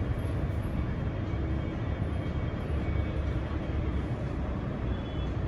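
A steady low rumble of background noise, with no distinct knocks or clicks.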